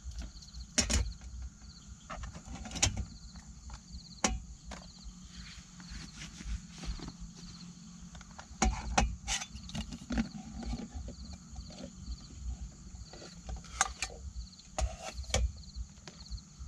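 Metal camping cook pot and lid being handled and set down on a folding aluminium table: a series of irregular clinks and knocks, about nine in all. A steady pulsing insect chirp runs behind.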